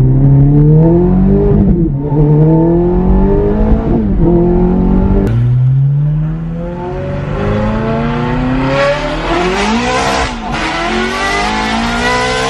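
Ferrari F430's V8 heard from inside the cabin, accelerating hard through the gears: the revs climb and drop back at each upshift, twice in the first few seconds. About five seconds in it cuts to the same car with its exhaust straight-piped, accelerating again with more high-pitched rasp and a quick rise and fall in revs about ten seconds in.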